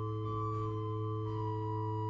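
Organ music: a sustained chord held over a low bass note, with one upper note moving to a new pitch a little past halfway.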